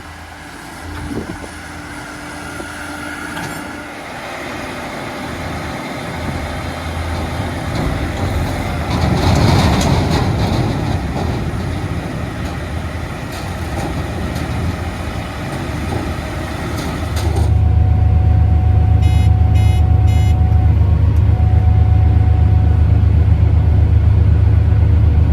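Heavy diesel harvest machinery running in the field, the noise building gradually. About two-thirds of the way through it switches suddenly to a louder, steady low engine drone.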